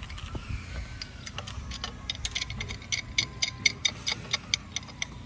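A pipe wrench working at the inner tie rod joint of a removed steering rack, giving a rapid, even run of sharp metallic clicks, about five a second, from about a second in.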